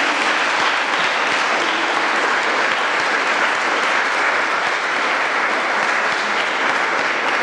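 Audience applauding: a steady mass of clapping from a seated crowd.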